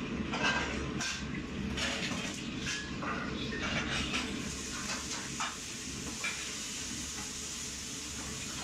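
Busy commercial wok kitchen: a steady low noise from the burners and extraction hood, with metal clatter of woks and utensils in the first half. From about four seconds in, a steady hiss of food sizzling in the woks comes to the fore.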